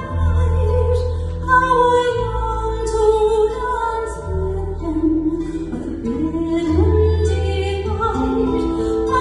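Live folk music: an instrumental passage of plucked strings over long held bass notes, with a wavering note that slides down and back up near the middle.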